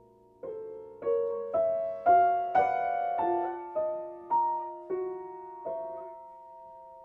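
Piano music: a run of struck notes and chords, about two a second, climbing in pitch and then stepping back down, the last chord left to ring and fade.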